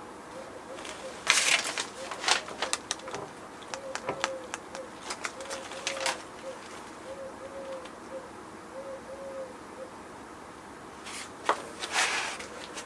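Scattered rustles and a few knocks as a person shifts about and reaches for something. A faint wavering hum sits underneath.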